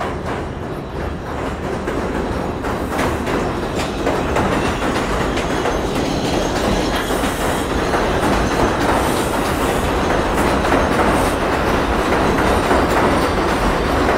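R142 subway train running through an elevated station without stopping. Its wheels clatter over the rail joints, growing steadily louder as the cars come alongside and pass close by.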